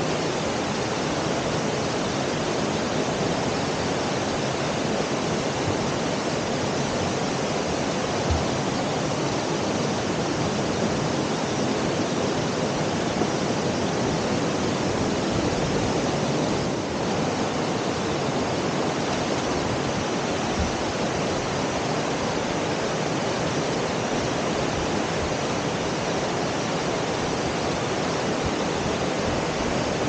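Waterfall's steady rush of falling water.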